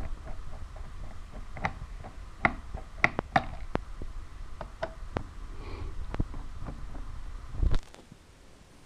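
Screwdriver tip clicking and scraping against the small screws of a Dell Inspiron 1501 laptop's plastic memory cover as they are undone: a run of sharp, irregular clicks. Under them runs a low rumble that ends with a heavier thump near the end.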